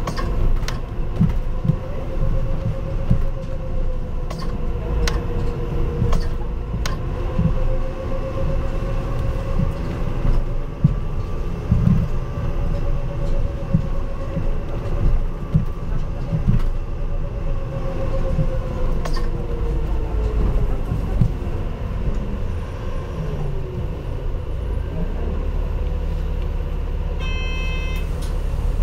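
Isuzu Erga Mio CNG non-step city bus under way, heard from inside the cabin: a wavering engine and drivetrain whine over low road rumble, with scattered knocks and rattles. About twenty seconds in the whine drops in pitch and fades as the bus slows, and a short electronic chime sounds near the end.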